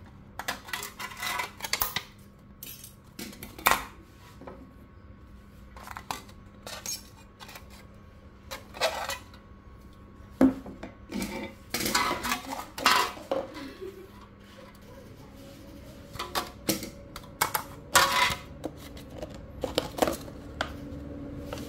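Irregular clicks, taps and light metallic clatter of an aluminium drink can and hand tools being handled and set down on a stone slab, with a thin plastic cup handled near the end.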